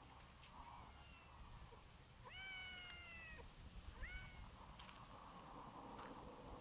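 Faint meowing of a domestic cat: a long meow of about a second that rises and then slowly falls in pitch, followed by a short meow, with a fainter one before them.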